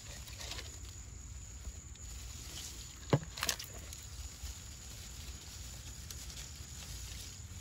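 Muscadine grapevine leaves rustling as a hand pushes through them, over a low steady rumble, with two sharp clicks a little after three seconds in.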